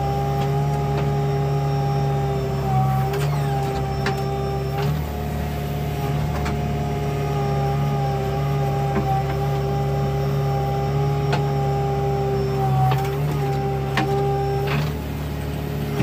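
JCB 3DX backhoe loader's diesel engine running under working load, heard from inside the operator's cab, with a steady hydraulic whine that dips briefly as the levers move the backhoe arm. A few short sharp knocks come through, most of them in the last few seconds.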